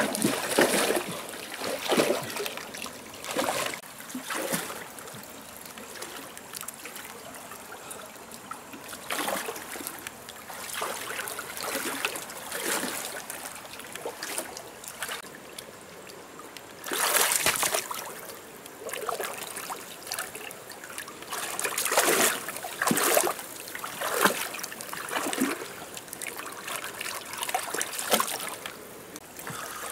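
Shallow water trickling and splashing, with irregular splashes every second or two; a longer, louder splash comes a little past halfway and several more follow near the end.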